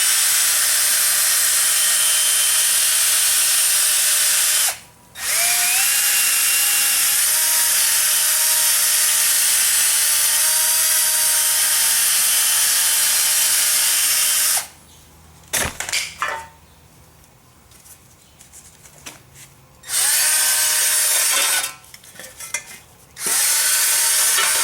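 Hand-held power tool with a wire brush scouring rust and scale out of a wheel hub bore, running in spells. It stops briefly about five seconds in and spins back up with a rising whine, falls quiet for several seconds with a sharp knock in the gap, then runs twice more in short bursts.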